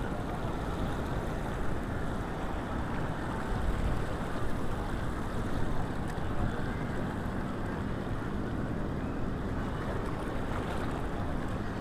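Steady rush of surf and water churning over a rocky reef, mixed with wind rumbling on the microphone.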